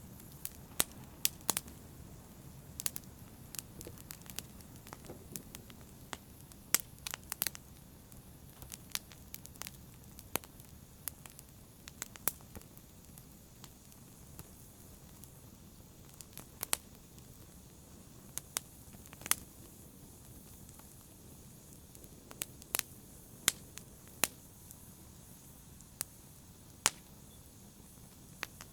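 Fire in a brazier crackling: irregular sharp pops and snaps, some in quick clusters, over a low steady hiss.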